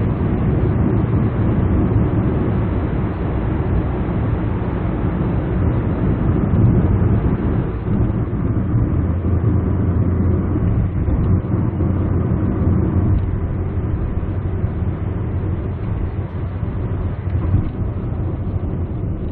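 Steady engine and tyre noise inside the cabin of a 2003 Samsung SM5 running on LPG, driven at road speed. The low engine note grows louder for a few seconds around the middle.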